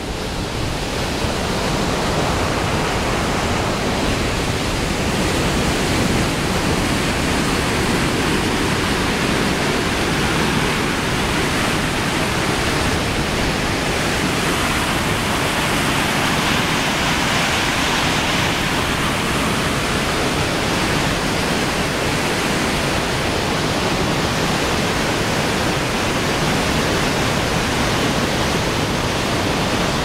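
Mountain stream rushing over rocks and small cascades: a steady, even rush of water that swells over the first second or two, then holds.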